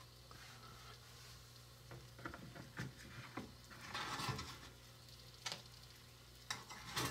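Small metal baking pan slid into the front slot of a toy Easy Bake oven and pushed home by hand: faint light clicks and scrapes, the loudest scrape about four seconds in.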